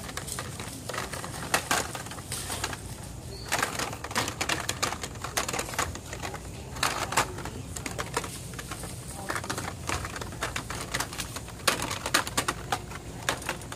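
Hot Wheels cars in plastic blister packs being flipped through and lifted on metal peg hooks: irregular plastic clicks and card rattles in short clusters.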